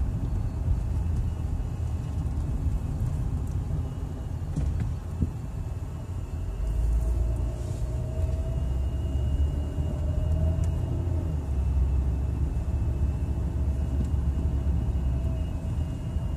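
Car cabin noise while driving on a paved road: a steady low rumble of engine and tyres that gets heavier about six seconds in, with a faint steady whine above it.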